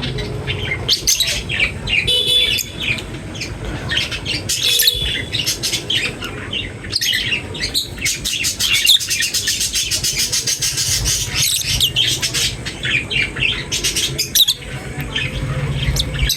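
A group of birds chirping and squawking at once in a busy, overlapping chatter of short high calls, over a steady low hum.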